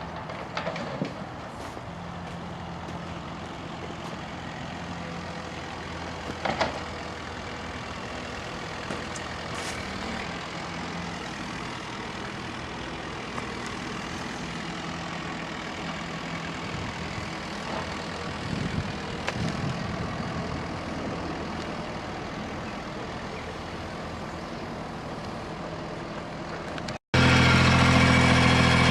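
Engine of small earthmoving machinery running steadily, with a few sharp knocks. About 27 seconds in the sound cuts to a much louder, closer engine running.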